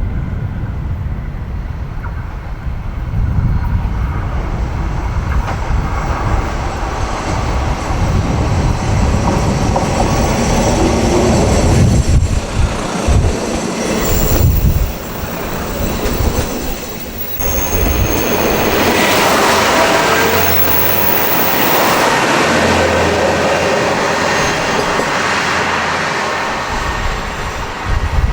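Kashima Rinkai Railway diesel railcar running on the elevated track: a continuous rumble of wheels on rail with faint high wheel squeal partway through, then a steady low engine hum near the end.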